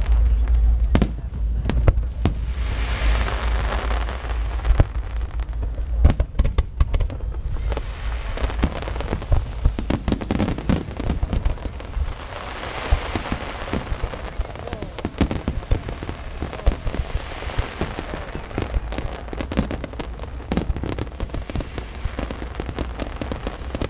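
Aerial fireworks display: a dense run of sharp bangs and crackling bursts over a low rumble from the explosions.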